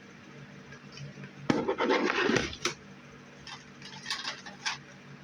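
Small plastic objects, likely disposable cameras, being handled and shuffled: a loud rustling clatter lasting about a second, starting about a second and a half in, then a few light clicks and taps.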